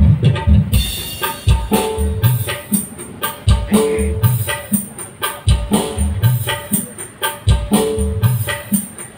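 Music played through a large 25,000-watt SKM Audio PA sound system: a rhythmic beat of heavy bass hits with tambourine-like percussion on top.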